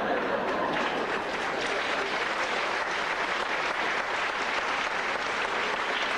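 Audience applauding steadily: dense clapping from a hall full of people.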